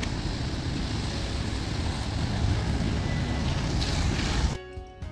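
City street traffic on a wet, slushy road: tyres hissing past with a low rumble and wind on the microphone, growing louder as a city bus passes close. About four and a half seconds in it cuts off suddenly to quiet music.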